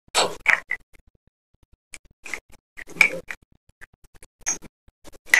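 Crisp crunches of a person biting and chewing chunks of dry multani mitti (Fuller's earth clay), coming in separate bursts: several in the first second, a cluster about three seconds in, and more near the end.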